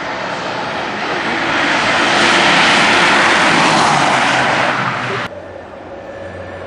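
Two Daihatsu Charade GTti hatchbacks, each with a turbocharged 1.0-litre three-cylinder engine, racing flat out past close by. Their engines and tyres build to a loud rush about two seconds in, then the sound cuts off suddenly a little after five seconds to a quieter, more distant engine sound.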